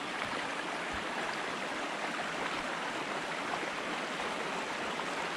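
Steady rushing of a flowing river, with water running off a gill net as it is lifted hand over hand out of the current.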